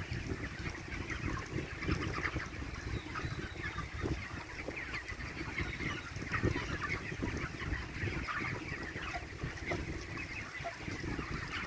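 A flock of chickens clucking, many short overlapping calls, over a low rumble.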